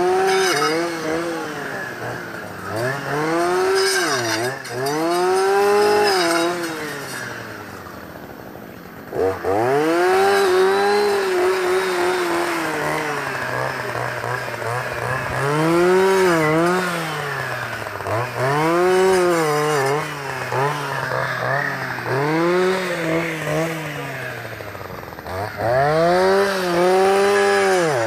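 Two-stroke clearing saw (brush cutter) engine repeatedly revving up and dropping back as it cuts through saplings and brush, every couple of seconds. About eight seconds in it falls back to a lower, quieter run for a moment, then picks up again.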